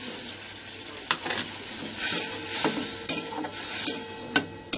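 Liquid poured into hot spiced oil in a metal kadai sizzles. From about a second in, a flat metal spatula stirs and scrapes against the pan in quick strokes, about two a second, over the bubbling mixture.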